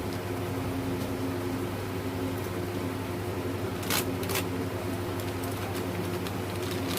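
A steady machine hum with a low drone and a few held tones, and two sharp clicks close together about four seconds in.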